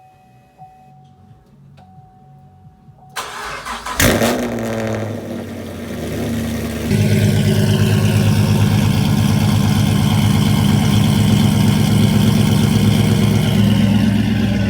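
2010 Chevrolet Camaro cold-starting through a Flowmaster Super 10 muffler: the starter cranks, the engine catches about four seconds in with a loud flare, then settles into a steady, louder idle from about seven seconds in. The exhaust note is not very raspy, the muffler having quietened it.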